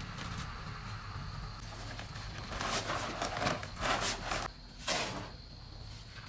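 Cement powder poured from a paper sack onto a sand pile, with the sack rustling and sliding: several short, noisy bursts about halfway through, then quieter.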